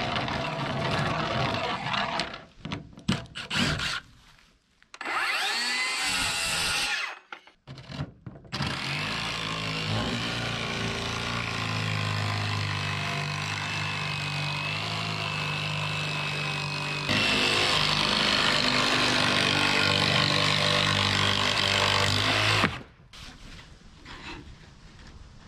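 A power tool cutting wood, heard in several short cut-together takes. In one early take the motor's pitch sweeps as it changes speed. The longest take runs steadily for about fourteen seconds and stops abruptly near the end.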